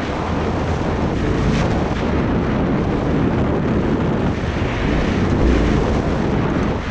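Heavy wind noise on the camera microphone over a Yamaha Ténéré 700's 689 cc parallel-twin engine, the bike being ridden along a dirt track.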